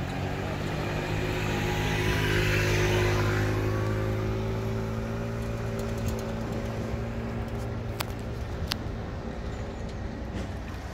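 Inboard engine of an open canal boat running steadily at low speed, a deep even drone. A broad hiss swells and fades two to four seconds in, and two sharp clicks come about eight seconds in.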